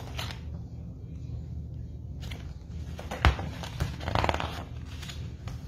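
A hardcover picture book being handled: a sharp knock about three seconds in, then a papery rustle as a page is turned, over a steady low hum.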